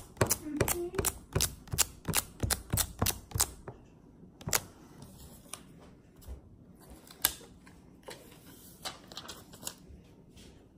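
Hands working over cased phones and a screen-protector kit: a fast run of sharp clicks and taps, about four or five a second, for the first three and a half seconds, then a few scattered single clicks.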